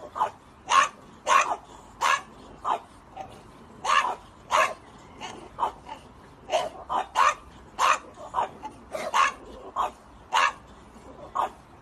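French bulldogs barking in a steady string of short, sharp barks, roughly one to two a second, some louder and some softer.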